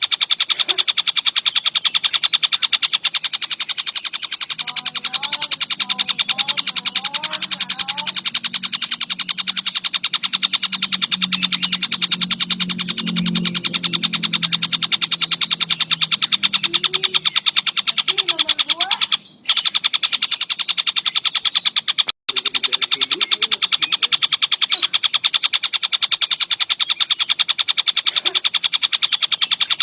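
Collared kingfisher (tengkek buto) calling in a fast, unbroken chatter of sharp repeated notes. A low drone sits underneath for a while in the first half, and the sound cuts out briefly twice about two thirds of the way through.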